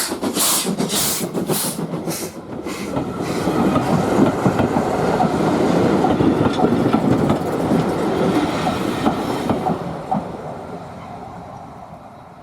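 Ivatt 2MT 2-6-2T steam tank engine working hard uphill, its exhaust beating about twice a second for the first couple of seconds. Then the train rumbles and clatters past on the rails and fades away.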